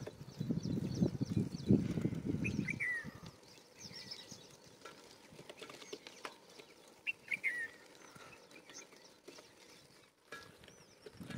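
Small birds chirping outdoors: repeated short, high chirps, with a slightly lower descending call twice. A low crackling rumble, like wind or handling on the microphone, covers the first few seconds.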